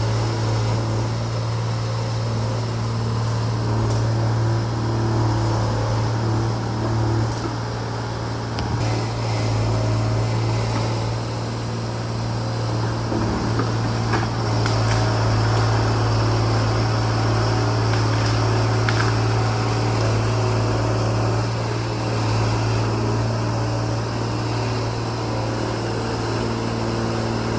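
A 125B excavator's diesel engine running steadily under constant throttle, a strong even low hum, with a few faint sharp ticks midway through.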